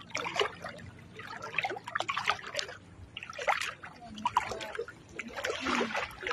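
Irregular splashing and sloshing of river water as a person wades through it.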